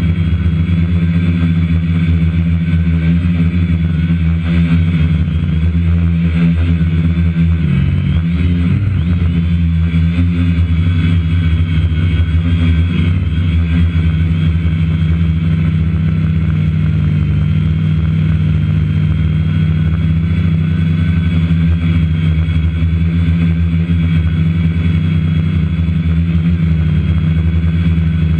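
Multirotor drone's electric motors and propellers buzzing steadily and loudly, heard up close from its onboard camera, with a brief wobble in pitch about eight to nine seconds in as it manoeuvres.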